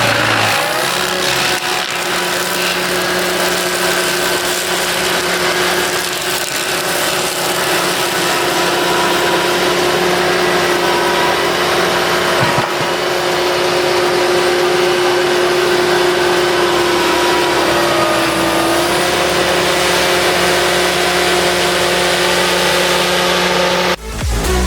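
Pfanzelt Moritz fr 75 forestry tool carrier's engine running steadily at working speed, with a steady whine over it that sags slightly in pitch near the end. The sound cuts off abruptly just before the end.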